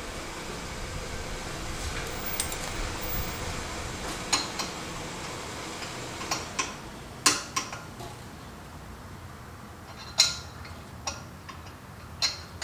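Hand tools clinking against a car's front brake caliper and bracket as they are worked onto a caliper bolt: about eight sharp metallic clinks, spaced irregularly, beginning about four seconds in, over a low steady hum.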